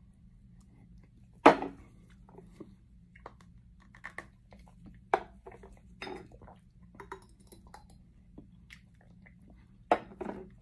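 Scattered short mouth sounds of someone eating and drinking hot sauce: slurps, swallows and lip smacks. One sharp knock comes about one and a half seconds in, the loudest sound, and a low steady hum runs underneath.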